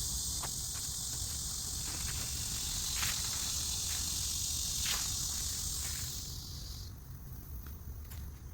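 Insects droning steadily in a high, even hiss that cuts off abruptly near the end, over a low rumble.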